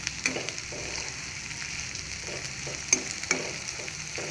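Dried prawns sizzling in hot coconut oil in a pan while being stirred with a spatula, with a steady frying hiss and a few sharp scrapes and taps of the spatula on the pan, the loudest about three seconds in. The prawns are fried through, the stage where the sound of stirring them changes.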